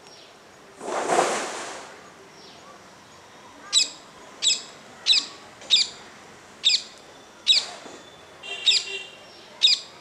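Rose-ringed parakeet giving eight short, high calls a bit under a second apart, starting a little before the middle. About a second in comes a brief rush of noise, about as loud as the calls.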